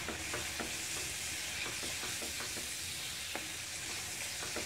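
Curd masala sizzling in hot mustard oil in a steel kadhai while a wooden spatula stirs it briskly: a steady hiss with irregular scraping ticks, several a second. It is stirred fast over raised heat to keep the curd from splitting.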